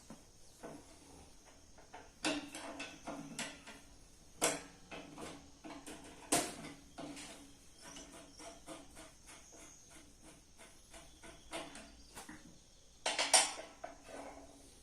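Metal tools and parts being handled: a long run of irregular clinks and clanks, with a few louder knocks and a cluster of the loudest strikes near the end.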